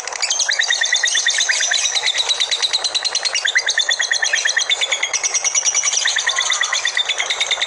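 Labet songbird singing a fast, chattering song of rapid repeated high notes in quick runs.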